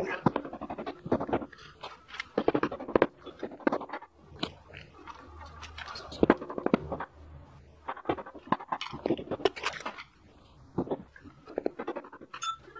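Cylinder head of a 1981 Honda GL1100 Gold Wing being worked loose from the engine block: irregular metal knocks, clicks and scrapes in short clusters as the head is rocked and tapped while it is still stuck on its gasket.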